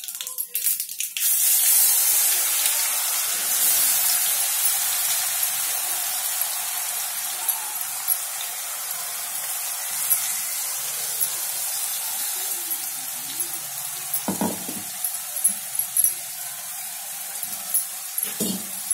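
Ground ginger, garlic and black pepper paste frying in hot oil: a loud sizzle that sets in about a second in and slowly eases off, with two short dull knocks in the second half.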